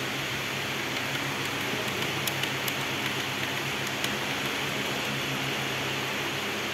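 Steady mechanical hum and hiss, with a few faint clicks about two to four seconds in.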